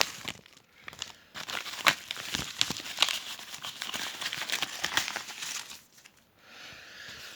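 Packaging crinkling and rustling as it is handled and opened, a dense run of irregular crackles that eases to a softer rustle about six seconds in.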